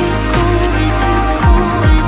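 Background music: a song with no vocals at this point, held tones and two deep bass hits that drop in pitch near the end.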